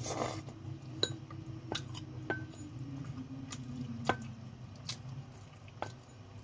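Wooden chopsticks clicking against a ceramic bowl of noodle soup as the noodles are stirred and picked up: about seven sharp taps with a short ring, roughly one a second, over a steady low hum. A short slurp of noodles right at the start.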